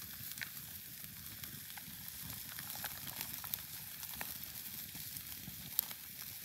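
Honey garlic ribs sizzling on a grill over a campfire: a steady hiss broken by a few sharp pops and crackles.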